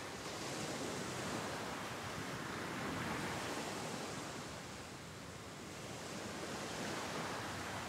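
Ocean surf washing onto a beach, a steady rush that eases about five seconds in and then builds again.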